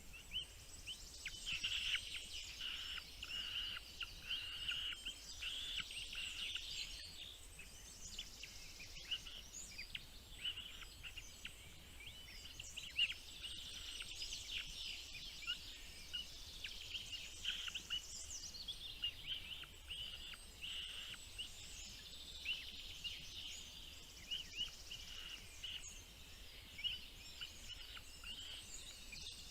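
Small birds chirping continuously: a dense run of short, high-pitched calls with no pauses.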